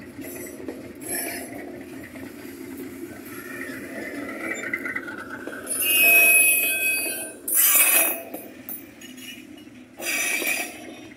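Freight train rolling on the rails with a steady rumble, wagons clanking. About six seconds in, a loud high wheel squeal lasts about a second, followed by two short loud bursts of metallic noise.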